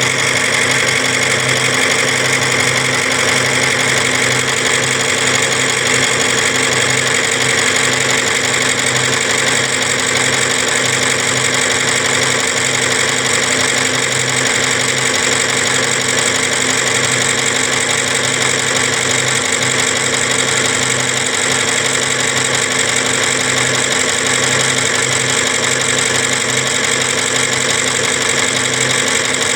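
Machinery running at a steady, unchanging pace, an engine-like drone with a constant low hum and dense high-pitched noise above it.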